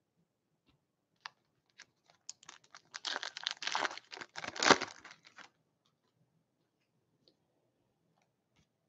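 An O-Pee-Chee Platinum hockey card foil pack being torn open by hand, the foil wrapper crinkling and tearing for about three seconds starting a couple of seconds in, after a few faint ticks of handling.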